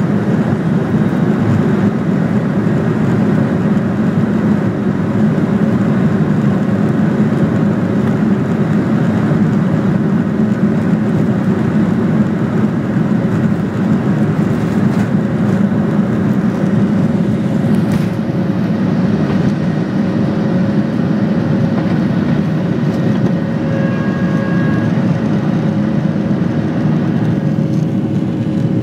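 Boeing 737's jet engines at takeoff thrust, heard inside the cabin over the wing: a steady, loud roar with rumble through the takeoff roll and on into liftoff.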